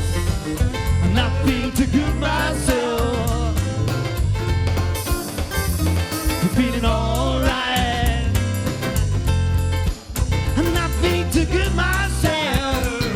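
Live band playing an upbeat rock number: drums and bass under a wavering, bending lead melody line, with a brief break about ten seconds in.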